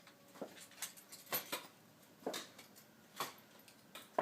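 Footsteps of stilt-legged robot armor: a series of short, sharp clunks on the floor, roughly one a second, as the wearer takes slow, unsteady steps.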